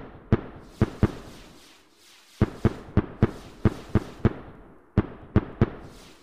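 Fireworks bursting: a quick series of about a dozen sharp bangs, each fading off quickly. They come thickest in the middle, with a few more spaced out near the end.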